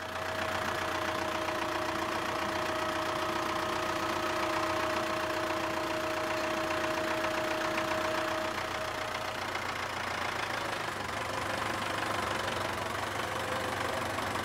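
A vehicle engine running steadily, with a steady hum that fades out about nine seconds in.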